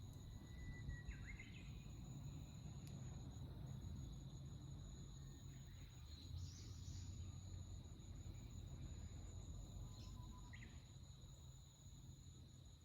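Faint forest ambience: a steady, high-pitched insect trilling runs throughout. A few brief bird calls come through: a short whistle with a rising chirp about a second in, a high chirp around six seconds, and two short calls near ten seconds. A low rumble lies underneath.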